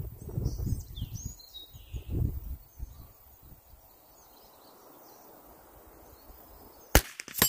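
Wind buffeting the microphone with birds chirping, then near the end the sharp crack of a Remington 597 .22 LR semi-automatic rifle firing, with a second sharp crack about half a second after.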